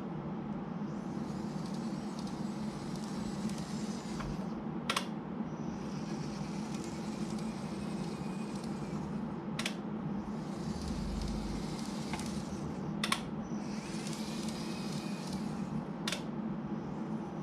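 N-gauge model tram running on track: a steady motor hum, a sharp click every three to five seconds, and a high hiss that swells and fades between the clicks.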